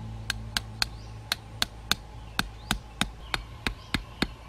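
Machete blade tapping a thin metal wire stake into the soil: a quick, even run of about fifteen sharp metallic taps, some three to four a second.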